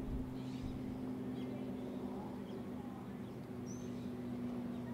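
A steady low hum of a few held tones, with a handful of faint, short, high bird chirps over it, one rising chirp near the end.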